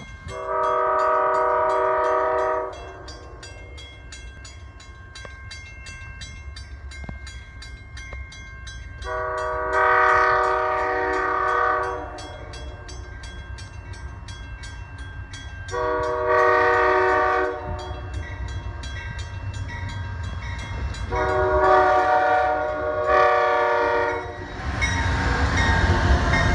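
An approaching Amtrak train's multi-chime air horn sounding for the grade crossing in a series of blasts: two long ones, a shorter one, then two more close together, over the steady fast ringing of the crossing bell. A low rumble builds through the second half, and the train's wheels and engine grow loud in the last seconds as it reaches the crossing.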